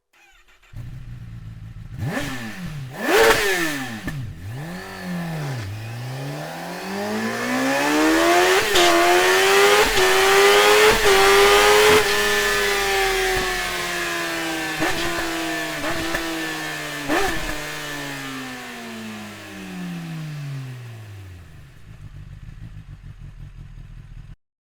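A Kawasaki ZX-10R's inline-four engine revving in a few short blips. It then climbs steadily in pitch with a few brief breaks, falls slowly and fades away.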